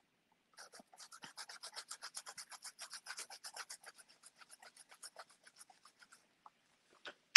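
A paintbrush rubbing green paint through a plastic stencil onto sketchbook paper in quick, even strokes, about seven a second, stopping about a second before the end.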